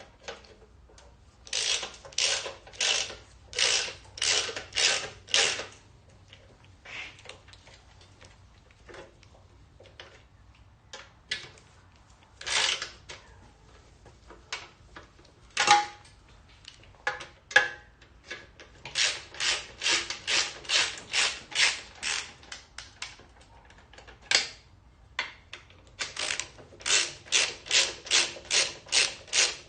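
Socket ratchet wrench clicking in runs of quick back-and-forth strokes, about two to three a second, with pauses and a few single knocks in between, as bolts on the engine are worked loose.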